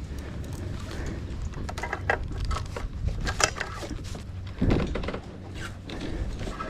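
A string of clicks, knocks and thuds over a low rumble: a kayak and fishing gear being handled while a hooked bass is worked free and landed. A heavier thud comes just under five seconds in.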